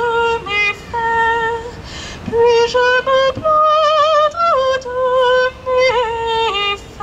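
A woman cantor singing solo and unaccompanied: long held notes with vibrato in short phrases, moving between a few pitches, with brief breaths between phrases.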